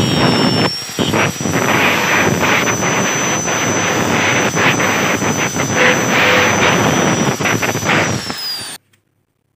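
Electric angle grinder grinding down a weld bead on a motorcycle clutch part: a steady high motor whine over the rasp of the disc on steel, with a few brief breaks where the disc comes off the metal. Near the end the whine falls as the grinder winds down, then the sound cuts off suddenly.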